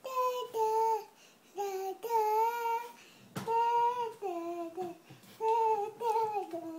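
A three-year-old boy sings a wordless "na-na" tune with no accompaniment. It comes as a string of short, high held notes with brief gaps, and the last few notes step down in pitch.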